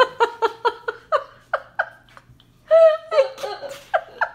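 Children laughing hard in rapid ha-ha pulses that slow over the first two seconds, then break out again louder about three seconds in.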